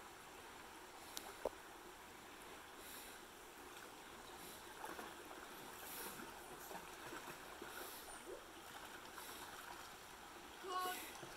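Faint splashing of dogs and a child wading through a shallow creek, over the low rush of the stream, with a brief cry near the end.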